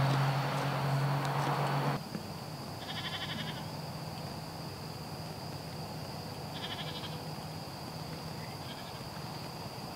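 A loud rushing noise with a steady low hum, which cuts off abruptly about two seconds in. After that a steady high-pitched tone runs on, and farm livestock bleat in short calls: one about three seconds in, another about four seconds later, and a fainter one near the end.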